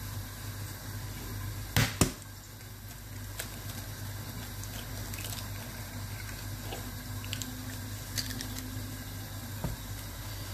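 Kitchen handling sounds over a steady low hum: two sharp knocks close together about two seconds in, then scattered light taps and clicks as an egg is cracked into a bowl of raw chicken breast.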